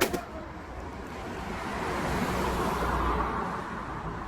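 A sharp click at the start, then a road vehicle passing by, its rushing noise rising and fading over a couple of seconds.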